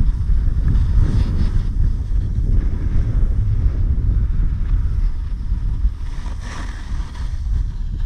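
Heavy wind buffeting an action camera's microphone during a downhill snowboard run, with the hiss of the snowboard sliding on snow swelling near the end as the rider carves a turn.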